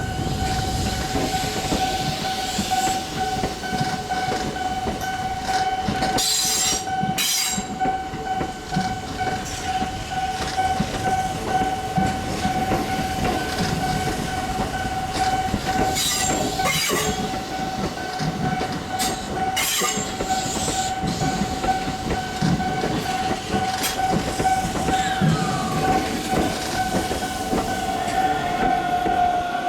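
A Japanese railway level-crossing warning bell ringing steadily while a Keihan electric train runs over the crossing. The train's wheels rumble on the rails, with a few sharp clacks from the rail joints.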